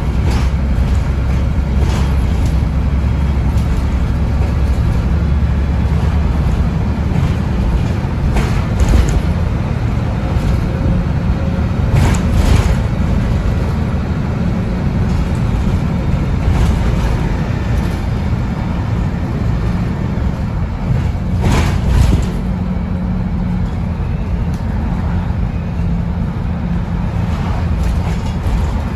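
MAN 18.240 bus's diesel engine and cooling fan running steadily under way, with a heavy low drone. Short rattles or knocks come through it now and then.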